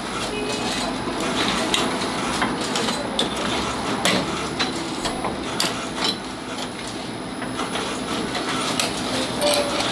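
Automatic walnut cake machine running: its metal mold plates clack and click irregularly as they move along, over a steady mechanical noise.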